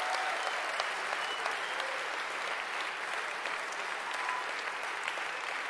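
Large seated audience applauding, the clapping slowly dying down.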